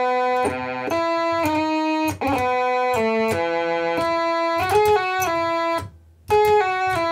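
Vintage Superior toy organ playing a run of chords with both hands. It has a bright, buzzy tone and changes chord about twice a second, with a brief break about six seconds in.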